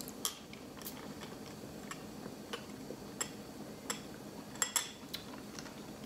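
Quiet sipping of a cold drink through a straw from a glass, with about ten soft scattered clicks and clinks from the drinking and the glass.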